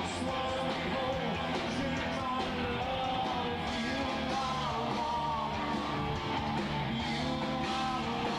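Rock band playing live, with electric guitar over bass and drums, and a wavering melody line on top.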